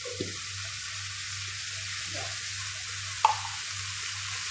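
Canned sardines in tomato sauce going into a hot pan of sautéed bottle gourd, sizzling steadily as they fry. One sharp knock about three seconds in.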